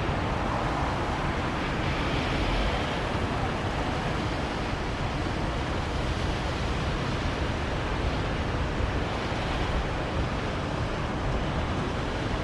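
Steady urban traffic roar: a continuous, even wash of distant city traffic, with no single vehicle, horn or voice standing out.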